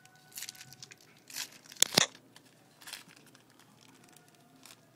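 Hockey-card pack wrapper being torn open and crinkled by hand: a few short rustling bursts, the loudest a pair of sharp crackles about two seconds in.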